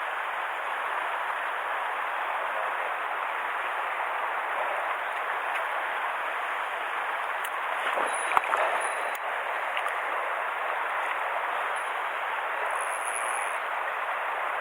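Mountain stream water rushing steadily, with a brief sharp knock about eight seconds in.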